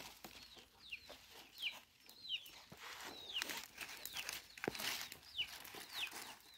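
Chickens calling nearby: a steady string of short, high chirps, each falling in pitch. A few sharp knocks from a knife cutting through the roasted chicken come in between.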